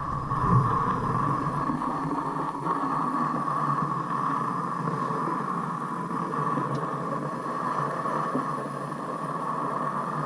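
Feiyu Tech G5 handheld gimbal's motors giving off a steady hum and whine, picked up through the mounted GoPro Hero 5's built-in microphone: the gimbal noise the Hero 5 records when sitting on the G5.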